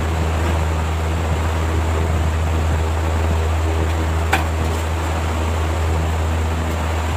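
A steady low machine hum, like an electric fan or motor, with one sharp click a little over four seconds in.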